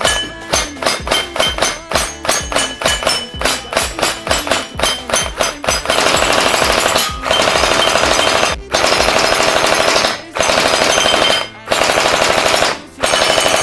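Electric gel blaster firing: rapid single shots at about three a second, then from about six seconds in, full-auto bursts of about a second each separated by brief pauses.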